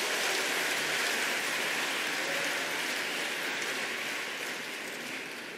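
Congregation applauding: a dense, even clatter of many hands that slowly dies down toward the end.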